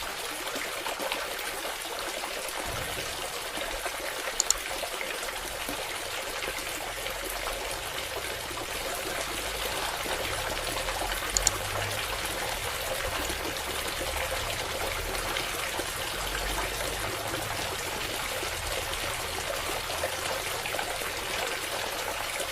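Water from a mini submersible water pump pouring and trickling steadily, with two brief clicks about four seconds apart.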